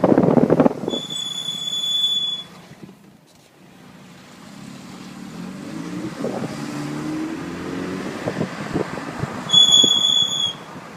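Car brake pads squealing: a high, steady squeal lasting about a second and a half, starting about a second in, and another about a second long near the end. Between them, road noise and an engine note rising in pitch.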